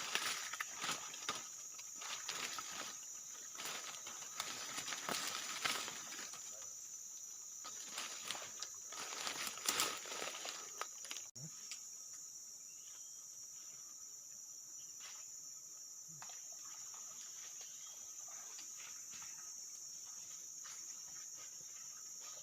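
Forest insects droning steadily at a high pitch, with a fainter lower tone beneath. Close rustling and clicks run through the first half and stop abruptly about halfway through.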